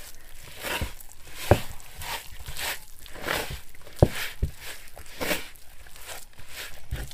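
A wooden spoon stirring and scraping through wet, floury bread dough in a plastic mixing bowl, in quick strokes about twice a second, with a few knocks along the way.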